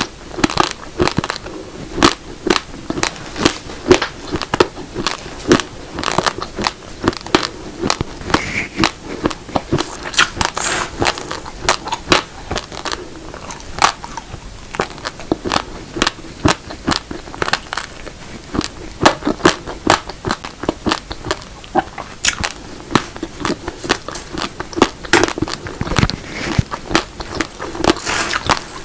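Close-miked chewing of raw, uncooked grains of black and red rice: dense, irregular hard crunches and cracks, several a second, as the dry grains break between the teeth.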